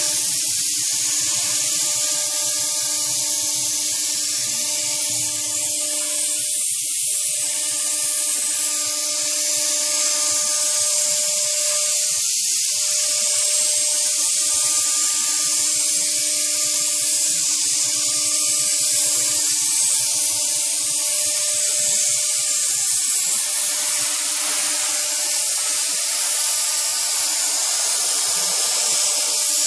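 CNC router spindle running with a steady high-pitched whine and a strong hiss while its end mill cuts a curved slot through pink rigid foam insulation board.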